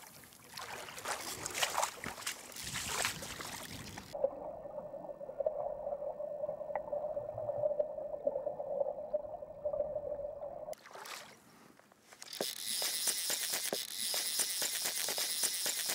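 Water splashing and rushing, then a muffled underwater recording with a steady low hum. After a brief silence comes the fast clicking of a fly reel's drag.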